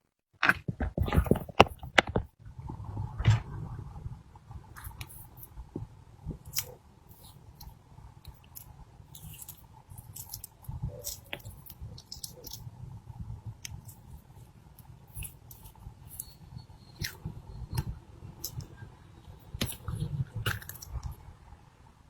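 Slime being squeezed and poked by hand: irregular sticky clicks, crackles and squishes, densest and loudest in the first two seconds.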